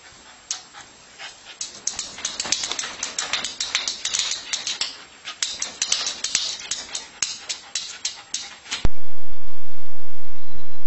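A small dog scrabbling and pawing at a mirror on a hard floor: a rapid, irregular run of sharp clicks and scratches. Near the end it cuts off suddenly to a loud steady hiss with a faint hum.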